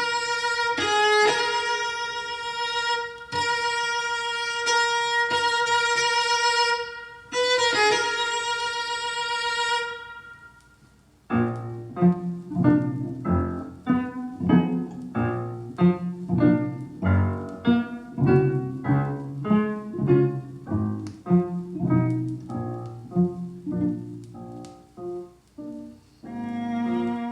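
Recorded classical music in playback: a violin holds a high note with vibrato, re-sounded several times, for about ten seconds. After a short pause comes a quick run of short, detached notes in a lower register.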